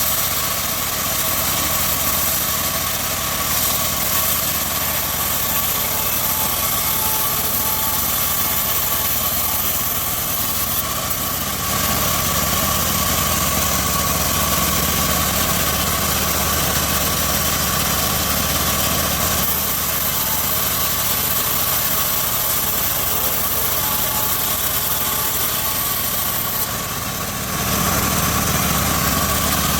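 Homemade sawmill bandsaw running steadily: a continuous mechanical drone with a steady whine over it. The sound shifts slightly about twelve seconds in and again near the end.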